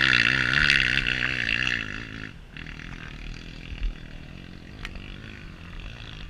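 Off-road motorcycle engine running hard at high revs, its pitch wavering up and down with the throttle, then dropping away suddenly about two seconds in, leaving a low rumble and a single thud.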